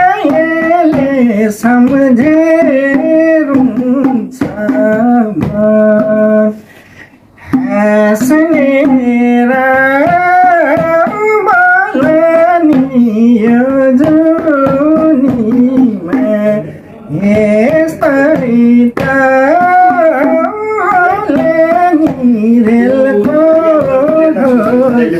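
A man singing a Nepali folk song (lok geet) and accompanying himself on a madal hand drum, its strokes sounding under the melody. He breaks off briefly about seven seconds in, then sings on.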